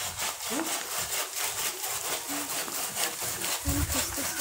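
Hand saw cutting through a live tree branch in quick, even back-and-forth strokes.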